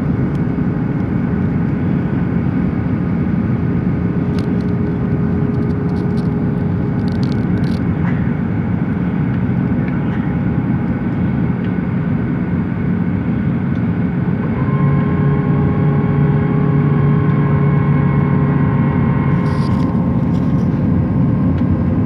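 Jet airliner cabin noise in flight: a steady, loud rumble with an engine hum. About fifteen seconds in, a stronger low hum and a higher whine join, and the noise grows a little louder.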